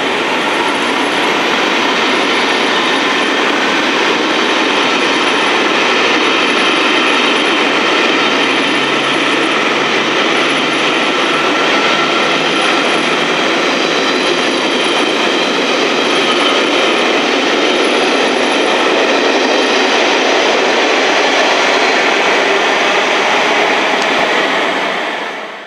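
A rake of Pullman coaches rolling past at speed: a loud, steady rush of wheels on rail with a faint high whine running through it. The sound drops away sharply at the very end.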